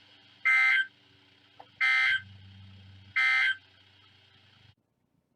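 Three short bursts of Emergency Alert System data tones from a NOAA Weather Radio receiver, a raspy two-tone squawk about a second and a half apart, over a low hum. These are the end-of-message code closing the severe thunderstorm watch. The receiver's audio cuts off shortly after.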